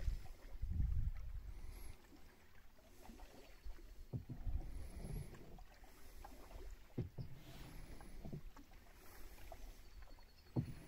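Canoe moving through calm water: irregular strokes and splashes in the water and low knocks against the hull, strongest about a second in, around four to five seconds, and near the end.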